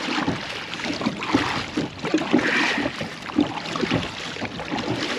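Water sloshing and lapping against a kayak's hull, with irregular low knocks.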